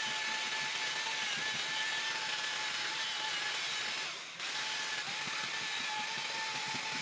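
Small power tool motor running steadily with a thin high whine, briefly dropping away a little past halfway and then running on.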